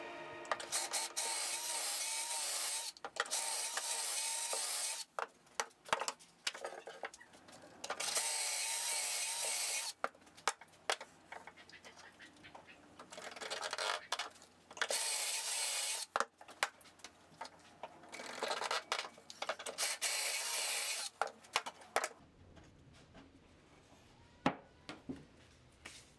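Cordless drill spinning a stepped pocket-hole bit through a pocket-hole jig into a board, in about six bursts of a few seconds each, with knocks and clicks between them as the jig and board are handled. It goes quieter after about 22 s, leaving a few knocks.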